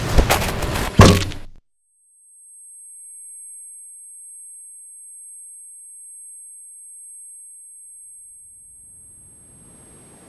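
Film sound design: two heavy hits, about a fifth of a second and a second in, the second the louder, after which the sound cuts out abruptly. A thin, high-pitched steady ringing tone then holds, with a hiss swelling near the end.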